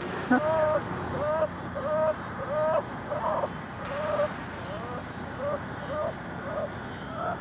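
Landed blue catfish croaking: a run of short, squeaky, baby-like calls, about two a second, the later ones weaker. A sharp click comes right at the end.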